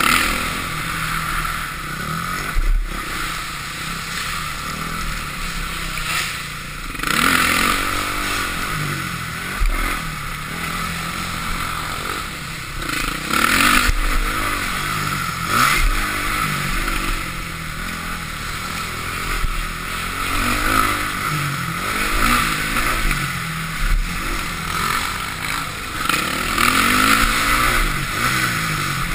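2005 Honda CRF450R's single-cylinder four-stroke engine revving up and down again and again as the dirt bike is ridden round the track, with louder surges every few seconds.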